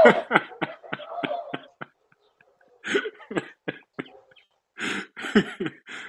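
A person laughing in three runs of short, breathy bursts with brief silences between them.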